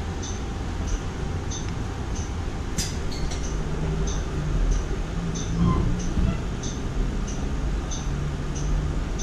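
Interior of a 2016 Nova Bus LFSe electric bus: a steady low rumble, with a light tick repeating about one and a half times a second and a sharp click about three seconds in.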